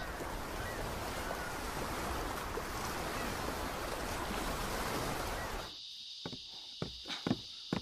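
Ocean surf washing onto a rocky sand beach: a steady rush of breaking waves. About six seconds in it cuts off, leaving insects chirring steadily with a few light knocks.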